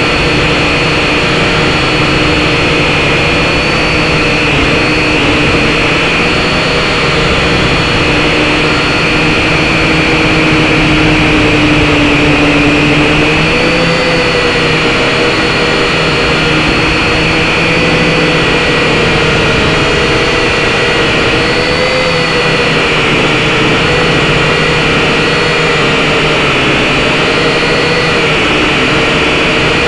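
SYMA X5HC-1 quadcopter's motors and propellers whining steadily and loudly, heard right at the drone's own camera, the pitch wavering slightly up and down as the motors adjust to hold the drone in the wind.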